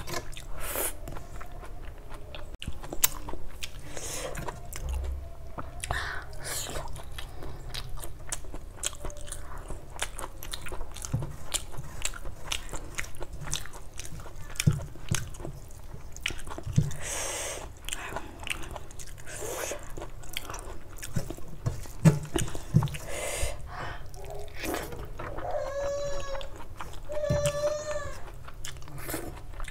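Close-up chewing and wet mouth sounds of someone eating rice and egg curry, with many small smacks and clicks. Near the end come two short closed-mouth hums.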